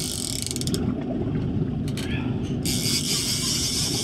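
Fishing reel drag ratcheting as a big white sturgeon pulls line off against the bent rod: a fast run of clicks that stops under a second in and starts again near the end. A steady low rumble runs underneath.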